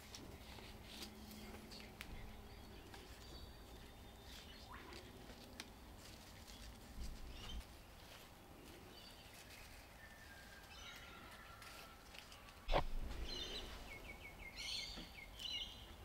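Faint birds chirping in the background, with a few small clicks and one sharp knock about three-quarters of the way through.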